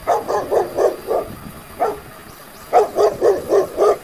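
Dog barking in quick runs: a string of about five barks, a single bark near the middle, then another run of about six.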